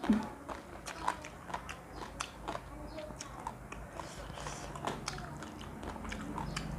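Someone eating close to the microphone: chewing and biting, with many short, irregular crunches and mouth clicks.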